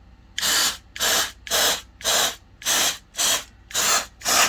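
Aerosol can of WD-40 Specialist Contact Cleaner sprayed in eight short hissing bursts, about two a second.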